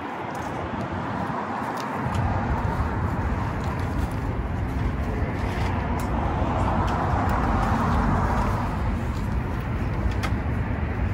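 Road traffic going by outdoors: a steady rumble sets in about two seconds in, and a passing car swells and fades near the middle. A few faint clicks sound over it.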